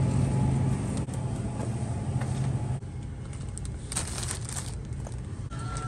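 Car on the move heard from inside the cabin: steady road and engine noise with a low hum that drops away about three seconds in, and a few small clicks and rustles.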